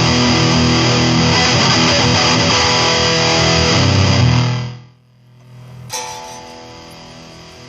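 Electric guitar played through a Line 6 Spider IV 15 amp. Loud strummed chords fade out about five seconds in, then a single chord is struck about a second later and rings on more quietly.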